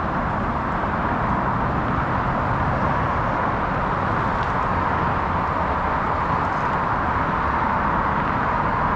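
Steady, even rush of highway traffic from the Don Valley Parkway below, many vehicles' tyres and engines blended into one continuous sound with no single vehicle standing out.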